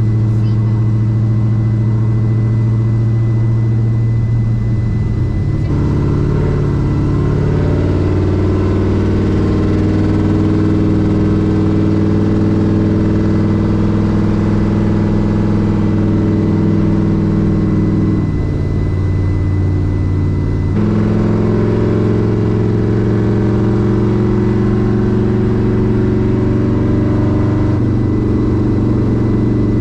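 Vehicle engine running steadily at track speed, heard from inside the cab, its pitch stepping down and back up a few times as the revs change.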